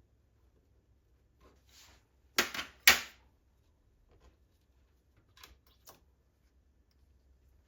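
A few sharp knocks and clicks of parts and tools being handled during a repair, the loudest two close together about two and a half seconds in, and a smaller pair near six seconds.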